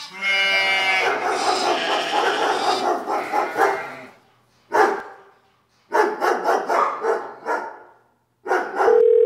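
Dog barking in bursts with short silent gaps between them. Near the end a steady telephone tone starts.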